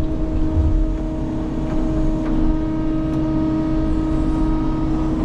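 Sany excavator-based forestry machine running steadily with an even hum, heard from inside the cab.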